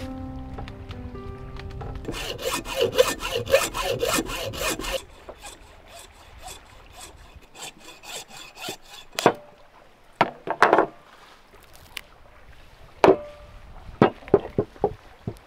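Quick rasping strokes, about four a second for some three seconds, then scattered sharp knocks and taps.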